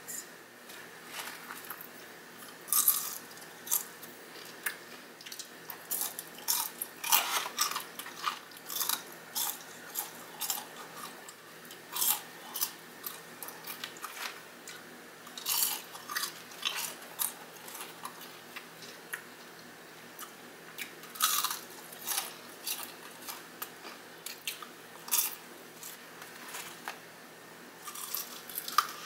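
Close-up crunching and chewing of crispy breaded Popeyes fried chicken: irregular sharp crunches as the coating is bitten and chewed, with quieter chewing between them.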